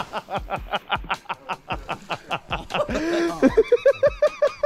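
People laughing hard in rapid ha-ha pulses, about five a second, turning into louder, high-pitched cackling about three and a half seconds in.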